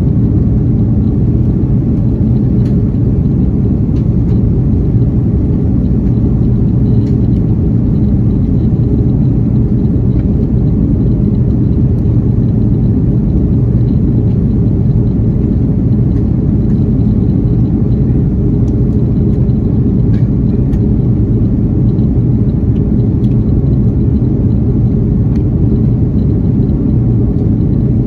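Airbus A330-300 cabin noise in flight: a steady low rumble of engines and airflow, with a few faint clicks.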